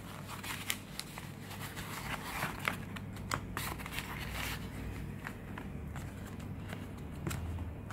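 Foam packaging being pulled off a small cardboard box by hand, and the box handled on a table, with scattered light rustles and clicks.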